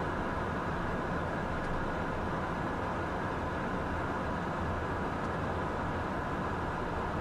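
Steady cockpit noise of a Cessna Citation business jet in flight, a constant rush of airflow and engine drone with a faint steady hum.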